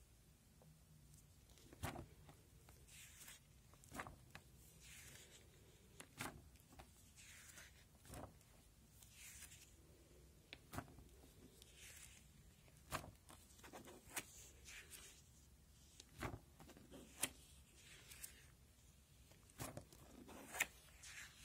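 Plastic sleeve pages of a display folder being turned one after another, each turn a soft rustling swish and a sharp plastic click, about every two seconds.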